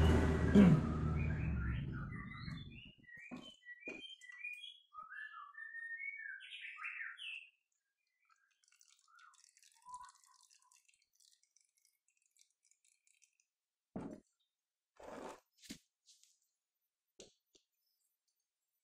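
Small birds chirping and tweeting for a few seconds, after a low rumble that dies away over the first three seconds. A few short knocks follow near the end.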